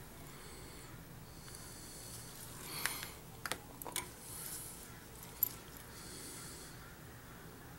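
Soft breathing close to the microphone, a breath about every second and a half, with a handful of small sharp clicks of metal tools on a watch movement between about three and five and a half seconds in.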